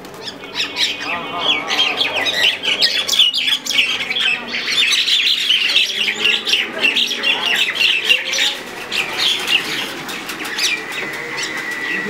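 Common mynas fighting, giving a dense, continuous run of rapid, harsh squawking calls, the scolding chatter of birds locked in a territorial scuffle.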